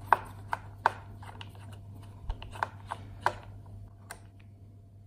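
Small precision screwdriver working the tiny screw that holds the M.2 SSD to the motherboard: sharp, light metal clicks, three in the first second and four more between two and three and a half seconds in.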